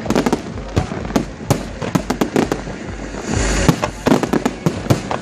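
Fireworks display going off: sharp bangs in quick, irregular succession, a few each second, with a denser crackling hiss from a burst about three and a half seconds in.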